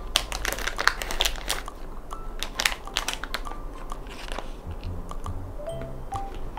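Crinkling and clicking of things being handled on a desk, dense at first and thinning out, with soft background music coming in: a few single notes from about two seconds in, then a rising melody with bass near the end.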